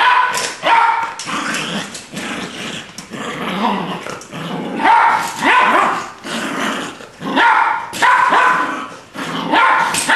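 Jack Russell Terrier barking and growling over and over, with a sharp bark about once a second.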